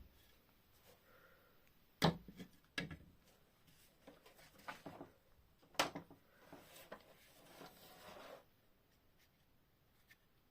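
Things being handled and set down on a work surface: three sharp knocks, about two, three and six seconds in, with light rubbing and shuffling between them, dying away near the end.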